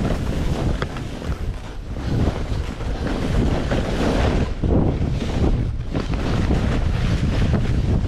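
Strong wind buffeting the microphone: a loud, noisy rumble that swells and dips with the gusts.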